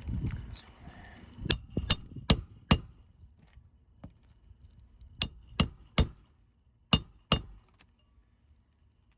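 Hammer driving roofing nails into an asphalt shingle, each blow a sharp metallic clink. There are about nine blows in three quick runs of four, three and two.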